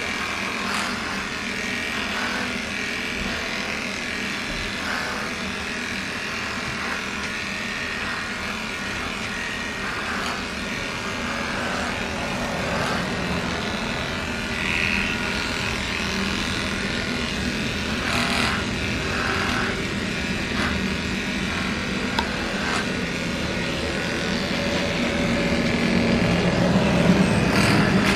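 Electric dog-grooming clippers running steadily as they shave a dog's coat, a little louder near the end.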